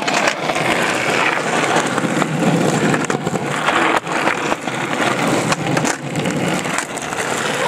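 Skateboard wheels rolling over rough asphalt: a steady rolling noise with occasional sharp clicks.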